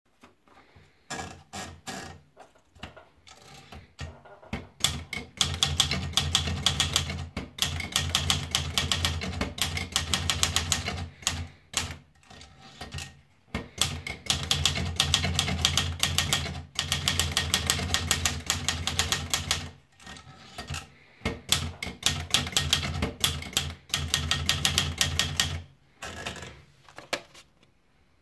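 Olivetti Lettera 31 manual portable typewriter being typed on: rapid key strikes in fast runs several seconds long, with short pauses between them and a few slower, scattered strikes at the start and near the end.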